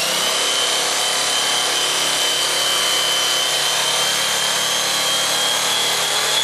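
Electric knife running steadily with a high whine, its blades sawing through thick upholstery foam.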